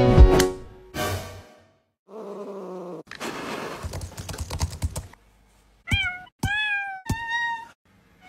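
A domestic cat meowing three times in a row, short bending calls, in the second half. Before them come a couple of seconds of computer-keyboard keys clicking.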